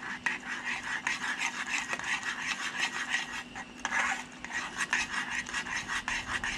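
A spoon stirring thick, wet mashed potato in a small metal saucepan, scraping and squelching against the pan in quick, repeated strokes.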